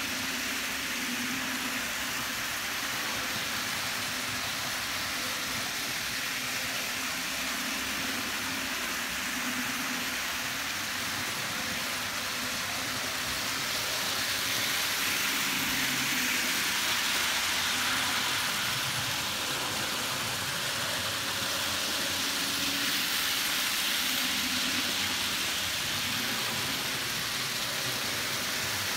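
HP Products 0-6-0 TT scale model steam locomotives pulling freight trains around an oval of track: a steady hiss of the cars' small wheels rolling on the rails, a little louder midway through.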